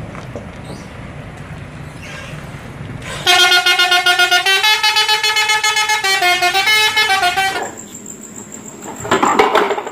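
A high-deck tourist coach's 'telolet' musical horn plays a short tune of several stepped notes for about four seconds, loud over a low rumble that comes before it.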